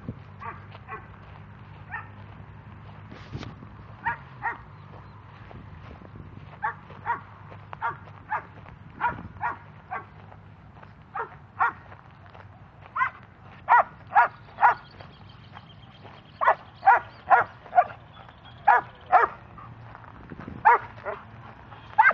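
A German Shepherd search dog barks repeatedly in short, sharp barks. The barks are sparse at first and come louder and faster from about halfway through, roughly one or two a second. This is the bark alert a search dog gives at a hidden live person it has found.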